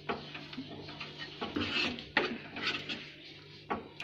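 Spatula scraping and stirring a thick besan-and-sugar-syrup mixture in a pan as hot ghee is worked in, in irregular strokes.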